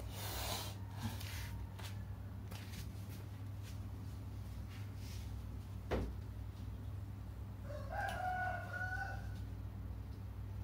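Newborn kittens crying, with one drawn-out mewing cry about eight seconds in, over a steady low hum.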